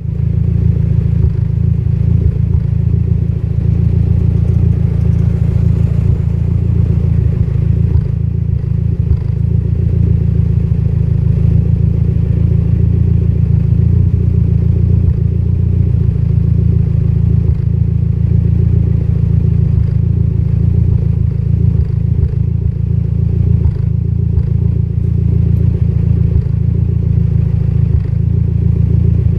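Mitsubishi Lancer Evolution X's turbocharged 2.0-litre four-cylinder engine idling unevenly, with frequent irregular dips in its note. It is a misfire at idle, which the owner puts down to a lean mixture.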